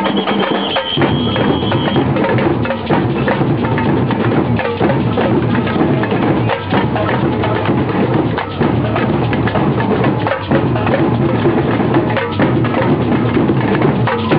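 Marching drum band playing: drums with sharp wood-block-like clicks in a loud, steady beat. A high steady tone sounds over it for the first two seconds.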